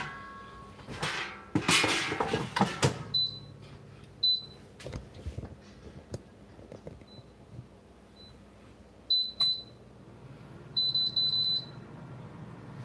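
A metal grilling plate and air fryer basket clattering as they go into a GoWISE USA air fryer. Then come short, high beeps from the fryer's touch panel as it is set, including a quick run of beeps near the end as the temperature is stepped up to 400.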